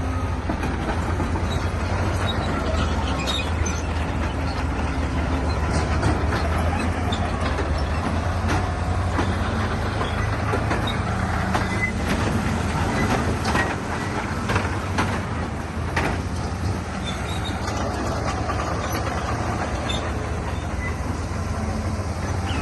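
Heavy earthmoving machine's diesel engine running steadily under load, with clanks and rattles of rock and metal, thickest in the middle of the stretch.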